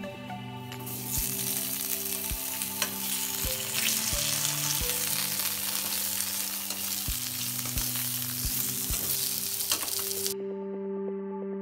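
Potato wedges sizzling in hot oil in an iron karahi, with the knocks and scrapes of a metal spatula against the pan as they are turned. The sizzle starts about a second in and cuts off suddenly near the end.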